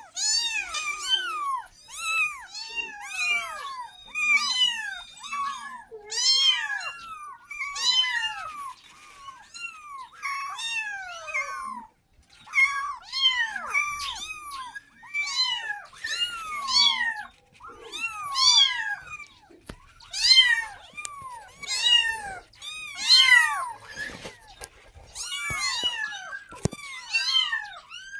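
A litter of young kittens meowing over and over, high calls following one another, often two or more overlapping, each rising then falling in pitch: calling for their mother, wanting milk.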